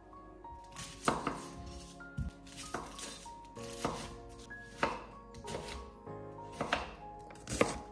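Chef's knife cutting through an onion and striking a bamboo cutting board: sharp knocks roughly a second apart, over soft background music with held notes.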